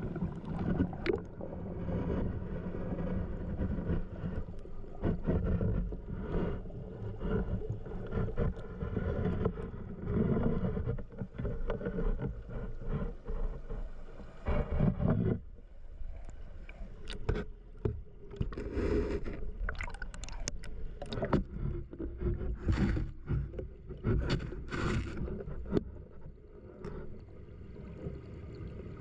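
Water of a small mountain stream rushing and gurgling, heard mostly as a low, uneven rumble with scattered knocks and splashes.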